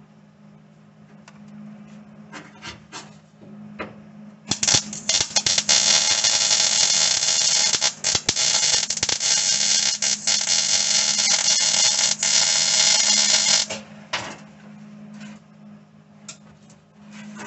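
Electric arc welding on the truck's steel floor brace: a continuous welding bead crackles loudly for about nine seconds, starting around four seconds in. There are a few short crackling strikes before and after it, over a steady low hum.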